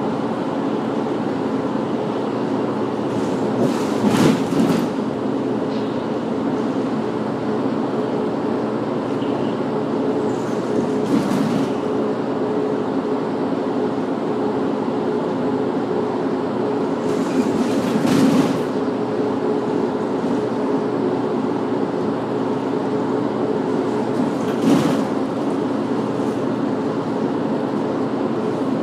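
A city bus heard from inside while driving: a steady engine drone with road and tyre noise, and four short bumps or rattles spread a few seconds apart.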